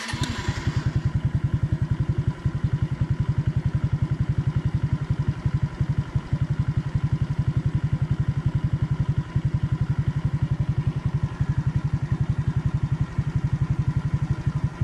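Suzuki Raider J115 Fi's single-cylinder four-stroke engine turned over briefly on the electric starter, catching at once and then idling with an even, rapid exhaust beat.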